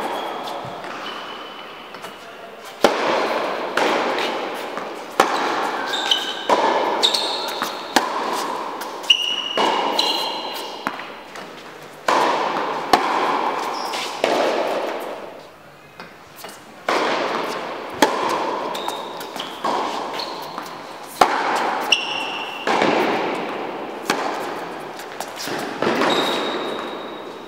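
Tennis balls struck by rackets and bouncing on an indoor hard court during a rally, a sharp hit every second or so. Each hit echoes and fades slowly in the large hall, with short high squeaks between the hits.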